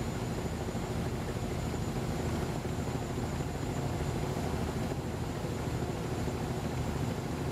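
Steady low drone of a passing tanker ship's diesel engine, with the rush of water from its bow wave.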